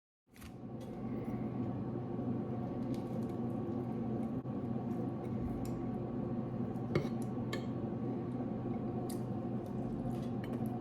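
Scattered light clinks and clicks of dishes, cutlery or glassware being handled over a steady background hum; the sharpest click comes about 7 seconds in.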